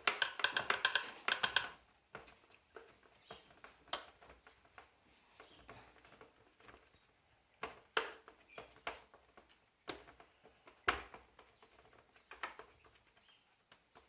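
Two metal forks pressing and spreading cornmeal dough in an oiled aluminium baking tray, their tines clicking and scraping on the metal. A quick run of clicks in the first couple of seconds, then scattered single taps.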